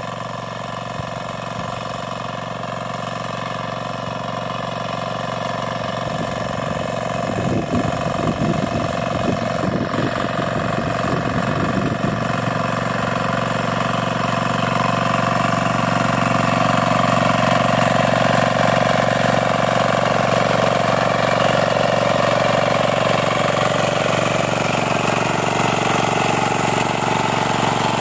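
Single-cylinder 10 hp diesel engine of a walk-behind power weeder running steadily under load as its tines till the soil, growing louder as it comes closer.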